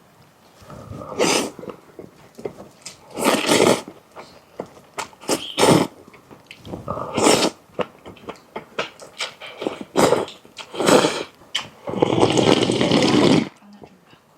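A person eating cold naengmyeon noodles: loud noisy slurps about a second in, around 3–4 s, 7 s and 11 s, and a longer slurp near the end, with small clicks of chewing in between.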